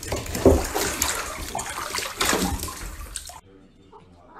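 Water splashing and sloshing in a filled bathtub, uneven and loud, cutting off abruptly about three and a half seconds in.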